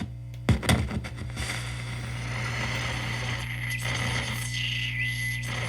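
AM radio of a vintage General Electric record player hissing with static, over a steady low hum, with a couple of clicks from the controls about half a second in. Near the end a whistling tone dips and rises in the static.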